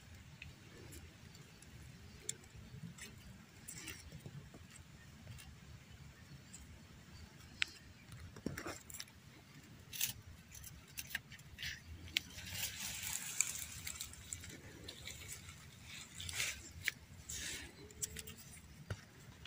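Bamboo leaves and twigs rustling, with scattered small clicks and snaps. A denser stretch of rustle comes about two-thirds of the way through.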